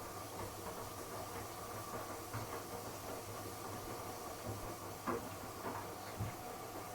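Miele W1 front-loading washing machine running a Cotton 60°C wash, its drum motor humming steadily, with a few soft knocks as the drum tumbles the laundry, the loudest about five seconds in.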